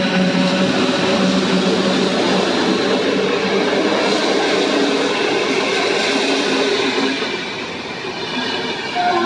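Electric-hauled passenger express coaches rushing past close by: the steady loud rush and rumble of wheels on rails. It dips briefly about eight seconds in, and a steady tone sets in at the very end.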